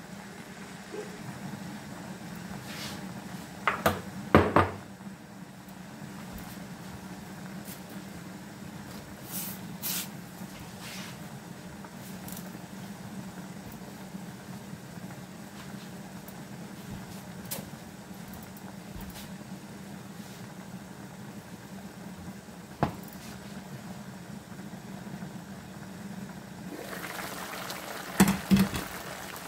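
Meatball and cabbage soup simmering in a covered pan, a steady low hum with a few scattered clicks and knocks. Shortly before the end the glass lid is lifted off with a quick cluster of clanks.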